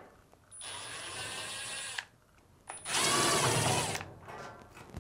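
Cordless drill-driver with a Phillips bit backing out two screws: the motor runs in two spells of about a second and a half each with a short pause between, and the second is louder.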